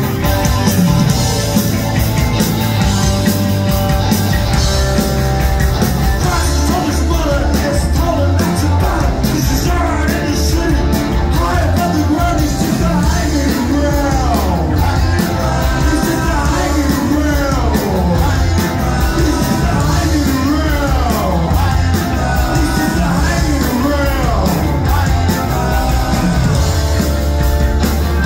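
A rock band playing live on drums, electric guitar, bass guitar and keyboards.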